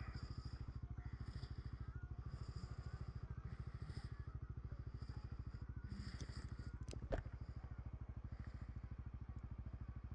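Honda CBR150R's single-cylinder four-stroke engine running steadily at low speed with an even, fast beat, with no revving. A sharp click about seven seconds in.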